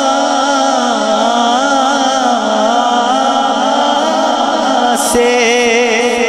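A man sings a naat into a microphone, holding and slowly bending long drawn-out notes over steady held tones. About five seconds in, a new note enters with a fast wavering vibrato.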